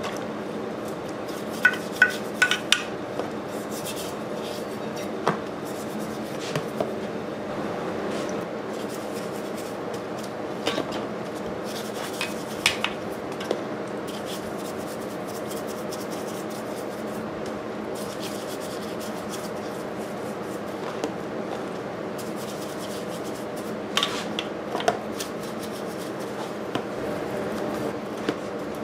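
Brush scrubbing an antique Briggs & Stratton 5S engine's cylinder block in a plastic tub of lacquer thinner to degrease it. Scattered sharp clinks and knocks come as the part and brush hit the tub, the loudest about two seconds in and again near the end, over a steady hum.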